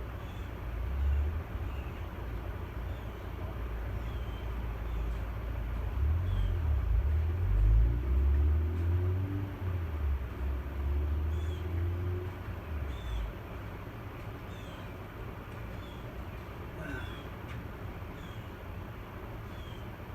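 Airficency 60-inch industrial ceiling fan running, heard as a low, uneven rumble that swells in the middle and eases off after about 13 seconds. Faint short high chirps recur every second or two.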